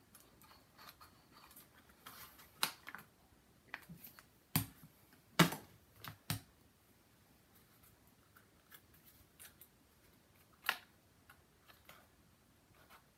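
A few sharp, scattered taps and knocks of handling on a crafting table: small cardboard mini pizza boxes being pressed and set down on a board, and a glue bottle put down. The loudest knock comes about five and a half seconds in.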